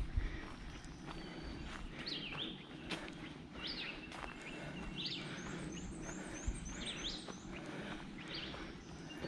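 Songbirds singing in woodland: short, sharp rising notes every second or two, with a quick run of high notes in the middle. Footsteps crunch on the trail underneath.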